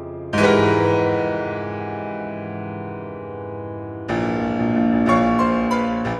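Background keyboard music: a chord struck about half a second in rings out and slowly fades, then a new passage of quick notes starts at about four seconds.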